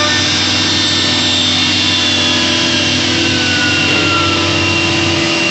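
4-axis CNC router's spindle running steadily while drilling into a curved veneered wood panel: a continuous high whine over loud machine noise, with one tone sliding slowly in pitch partway through.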